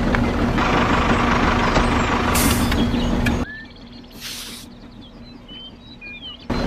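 A small electric motor hums steadily, then cuts off abruptly a little past halfway. Birds chirp in the quieter stretch that follows, with a brief hiss, and the motor hum returns suddenly near the end.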